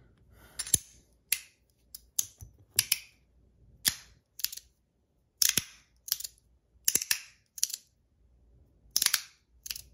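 Metal fidget slider (YEZ Lets Race) being slid back and forth, its plate stopping hard at the end of its track in sharp metallic clicks. A dozen or more clicks at uneven intervals, some in quick pairs.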